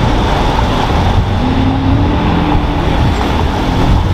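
A McLaren 570S Spider's twin-turbo V8 running as the car drives off slowly in city traffic, mixed with steady street traffic noise. A low engine note rises a little about a second and a half in.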